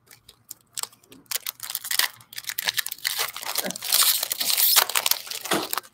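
Foil wrapper of an Upper Deck Series 2 hockey card pack crinkling as it is torn open, a dense run of crackles starting about a second in and going on until just before the end.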